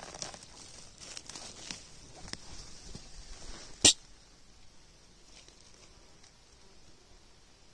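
Dry fallen leaves rustling and crackling with many small clicks as a hand works among them on the forest floor to pick a mushroom. A single loud, sharp click comes just before four seconds in, and after it the rustling stops.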